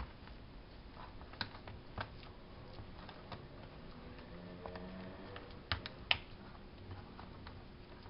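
Spoon clicking and scraping against small plastic tubs as brownie batter is scooped and spread, in irregular light clicks with two louder knocks about six seconds in.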